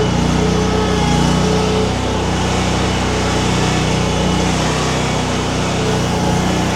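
Mini skid steer's engine running steadily while it powers a hydraulic wood-splitter attachment, with a faint whine in the first couple of seconds.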